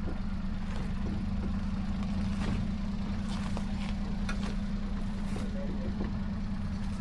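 Kei truck's small engine running steadily at low revs as it creeps over rough ground, with scattered clicks and knocks from about two seconds in.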